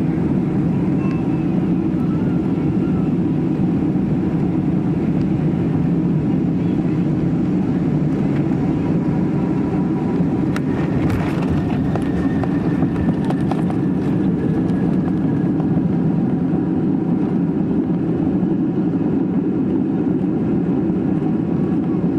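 Steady cabin noise of a Boeing 767 airliner heard from a passenger seat: an even engine and airflow rumble with no change in level, and a brief click about halfway through.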